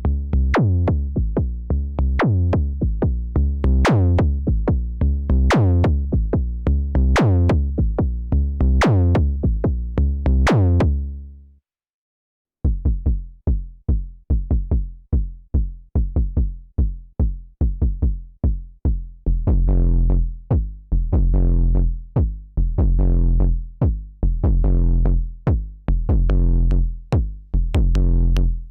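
KORG Volca Kick analog synthesizer playing a sequenced pattern of punchy, deep kick and bass notes. The pattern fades out just before halfway, and after about a second of silence a new, busier pattern starts.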